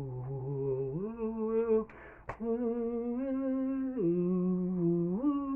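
A man singing long wordless notes unaccompanied, stepping down and up between pitches, with a short breath about two seconds in.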